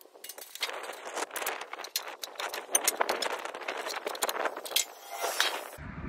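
Socket wrench fitted with an 11 mm deep socket and a small universal joint, ratcheting and clinking against the sawmill's metal fittings in a run of quick irregular clicks as a bolt is worked. The clicking stops abruptly just before the end.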